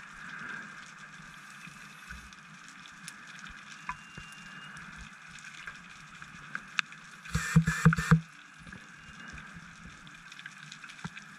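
Underwater sound inside a wreck: a steady faint hiss with scattered small clicks, then a loud burst of a scuba diver's exhaled bubbles, lasting about a second, around seven and a half seconds in.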